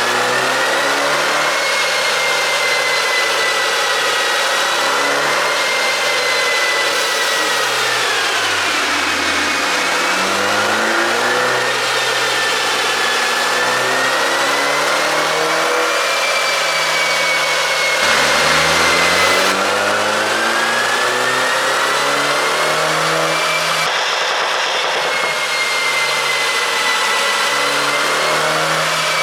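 BMW 530i's turbocharged 2.0-litre four-cylinder engine running, its pitch falling and rising slowly as the revs change, with a steady high whine on top.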